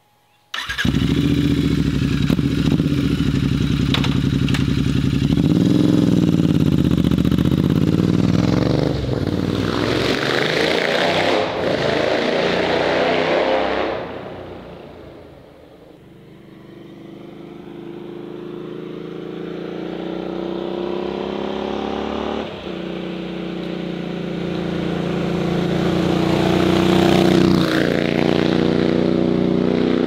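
Royal Enfield Interceptor 650's parallel-twin engine breathing through a Zard exhaust: it starts suddenly about half a second in and idles with a short blip of the throttle. It then revs up as the bike pulls away and fades into the distance, before growing loud again as the motorcycle comes back, accelerating with gear changes and loudest near the end.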